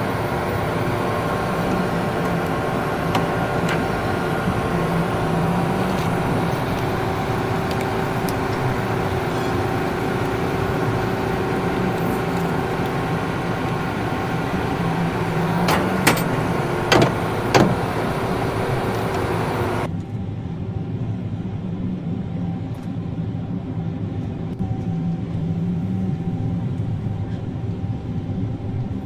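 Heavy vehicle engine running steadily, with a few sharp clicks about two-thirds of the way in. Partway through, the hiss suddenly drops away and leaves only the lower engine drone.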